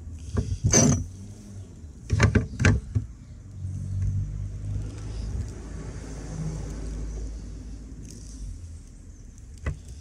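Sharp clicks and clacks from crimping pliers and a wire being handled, bunched in two groups in the first three seconds, then a low rumble lasting several seconds.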